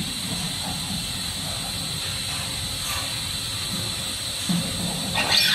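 Steady machine hiss with a constant high whine from a powered-up packaging machine, with a few soft knocks as a slotted metal star wheel is fitted onto it by hand. A louder burst of noise comes near the end.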